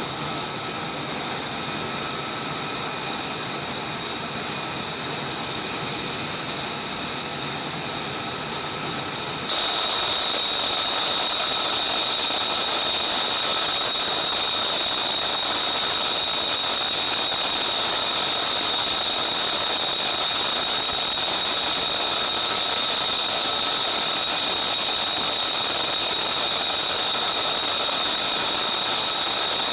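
Jet engine running with a steady rushing roar and a high whine. It gets abruptly louder and hissier about nine seconds in, then holds steady.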